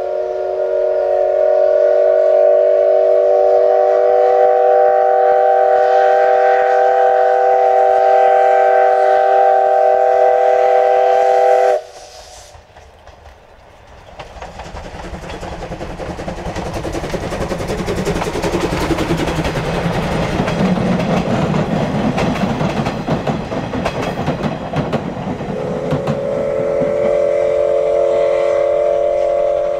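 The multi-note steam whistle of the C12 66 steam locomotive sounds one long steady chord for about twelve seconds and then breaks off abruptly. The noise of the train running toward the microphone builds up after that, with wheels clattering on the rails, and the whistle sounds again near the end.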